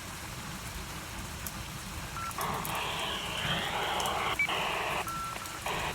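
Weather radio receiver's small speaker hissing with static that comes in about two seconds in, broken by short gaps and a few brief steady beeps.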